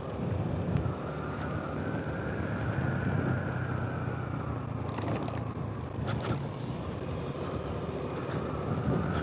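Motorcycle engine running steadily while riding at road speed, heard from a helmet-mounted camera, with a faint whine that rises a little and falls back. A couple of light clicks come about five and six seconds in.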